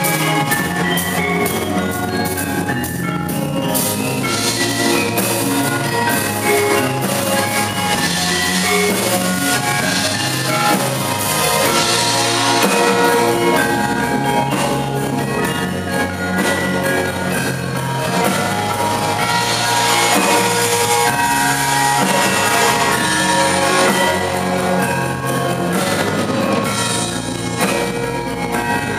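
Live ensemble music: gamelan metallophones and rows of small bronze kettle gongs struck with mallets, playing with a drum kit, electric bass guitar and keyboard.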